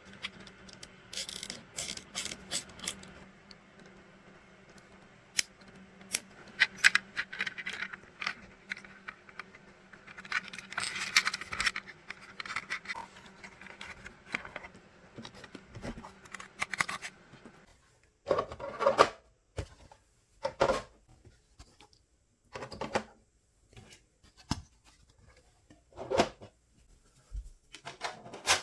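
Irregular clicks, scrapes and rubbing from 3D-printed PC case parts being handled and fitted together. A low steady hum runs underneath and stops about eighteen seconds in, after which the scrapes come as separate strokes.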